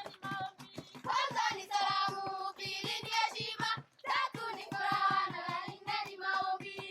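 A group of children singing together over a quick, steady beat of short sharp strikes.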